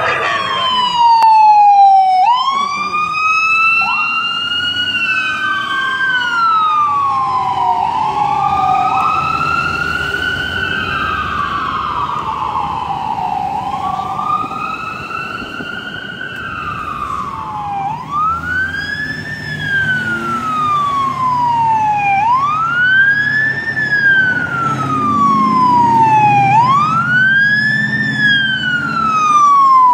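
Emergency vehicle sirens wailing, the pitch sweeping up and down every few seconds. Two sirens overlap at first; later a single siren repeats a quick rise and a slower fall.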